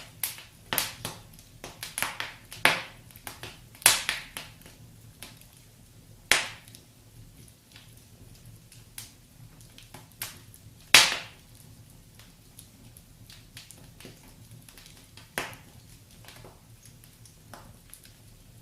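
Fire crackling in a fireplace: irregular sharp pops, a quick flurry in the first few seconds, then single pops spaced several seconds apart, the loudest about eleven seconds in, over a faint low hum.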